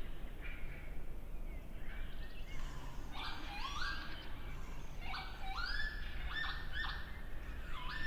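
Bird calls: a series of clear whistled notes, each sliding upward in pitch, repeating several times from about two and a half seconds in over a steady low outdoor rumble.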